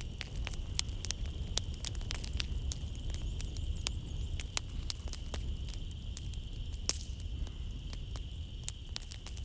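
Wood fire crackling in a fireplace: irregular sharp pops and snaps, several a second, over a low steady rumble. Behind it a steady high drone of night insects.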